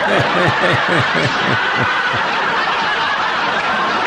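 A studio audience bursts into loud, sustained laughter. Over it, in the first two seconds, a man laughs in a quick run of short 'ha-ha' strokes, each falling in pitch.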